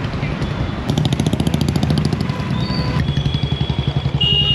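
Motorcycle engine running steadily, with a fast, even pulse and no revving.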